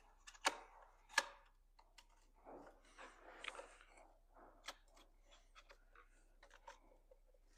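Scattered light clicks and scrapes of chainsaw parts being handled and fitted together by hand. Two sharper clicks come in the first second or so, then a short scraping stretch, then a run of lighter ticks.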